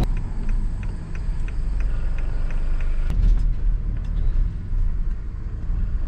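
Work van driving, heard from inside the cab: a steady low engine and road rumble, with a faint regular ticking about three times a second.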